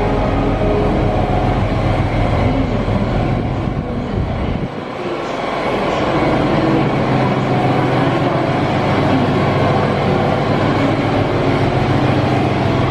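Railway locomotive standing with its machinery running: a steady loud hum and rumble. The deepest part of the hum drops away briefly about four and a half seconds in, then a steady low tone returns.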